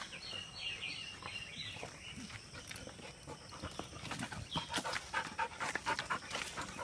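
Dogs panting while they sniff through leafy undergrowth. Short crackles and rustles of leaves and twigs come more often from about four seconds in.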